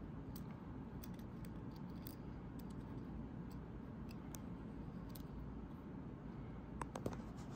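Faint, scattered clicks and taps of small plastic parts as a Honda smart key fob's case, button pieces and rubber button pad are handled and fitted together, with a few sharper clicks near the end.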